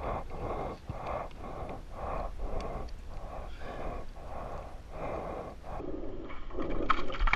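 A person breathing hard and fast, out of breath, about two breaths a second. Near the end there are a few sharp clicks and a knock.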